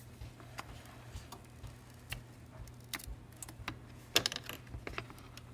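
Scattered light clicks and taps, with a quick cluster about four seconds in, as a tempered-glass screen protector is pried and peeled off an iPhone 7's screen and the phone is handled.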